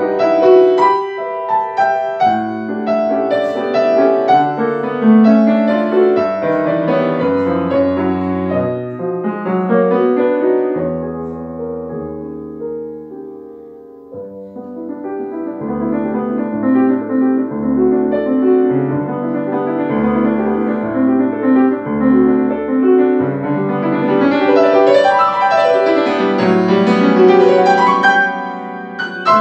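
Grand piano played solo in a classical style: dense, fast passages that fade to a soft, sparse stretch about halfway through, then build back up to loud, full chords near the end.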